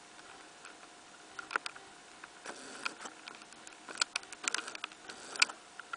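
Irregular sharp clicks of a computer mouse being clicked, a handful over several seconds, over a faint steady tone and low hiss.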